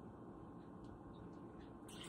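Near silence: low room tone, with a few faint ticks and a brief soft rustle near the end.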